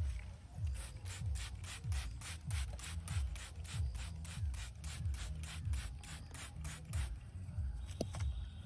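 Hands rubbing briskly over a customer's hair and scalp in a head massage, about four even strokes a second, stopping about seven seconds in, over a low, regular thumping.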